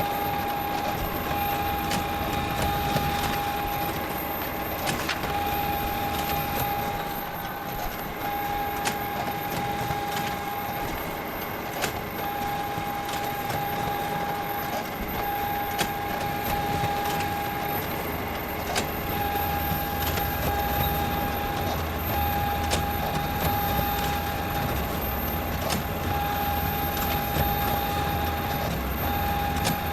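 Photocopier running: a steady mechanical hum with a high-pitched whine that drops out briefly every second or two, and scattered clicks.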